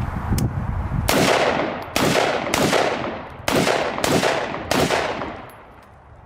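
Springfield Saint Victor AR pistol with a 10.5-inch barrel firing six semi-automatic shots, spaced a little under a second apart, each followed by a long fading echo.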